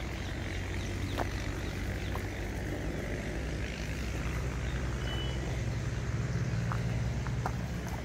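A low vehicle engine hum that grows a little louder and higher from about four seconds in, with a few light clicks.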